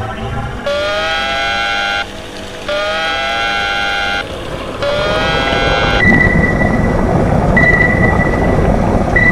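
A submarine dive alarm sounds three times, each blast sliding up in pitch and then holding. It gives way to churning water noise as the sub submerges, with a steady high beep repeating about every second and a half, like sonar pings.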